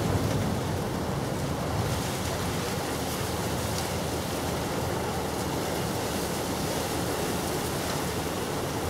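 Steady rushing outdoor background noise, an even hiss with no distinct events.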